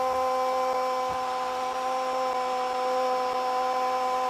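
A Spanish-speaking football commentator's long goal cry, one 'gooool' held on a single steady high pitch without a break.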